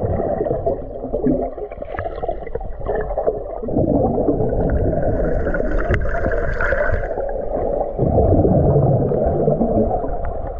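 Muffled water noise with an uneven gurgling and sloshing, heavy in the low range and dull above it, as picked up by a camera under water or in a waterproof housing.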